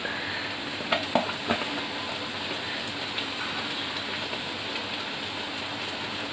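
Semolina cooking in hot water in a metal kadai, bubbling and sizzling steadily. A few light knocks sound about a second in.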